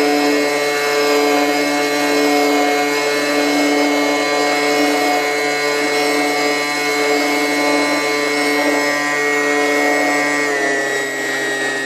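Brushless Axi electric motor in an RC Stingray model submarine running steadily, a mechanical whine that holds one pitch, with a slight shift near the end.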